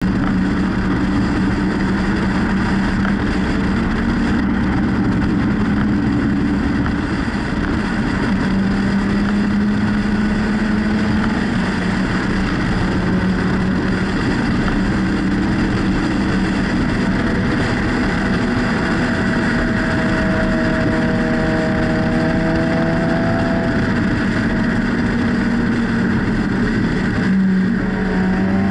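Car and sport motorcycle engines running at low speed and idling close by, a steady loud drone whose pitch shifts up and down slowly, most noticeably in the middle.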